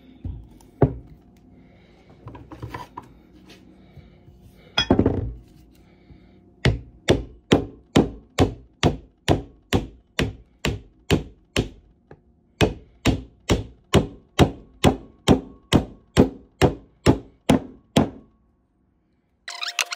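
Repeated hammer blows during vise reassembly: a few scattered knocks, the loudest about five seconds in, then a steady run of about two sharp strikes a second that stops a couple of seconds before the end.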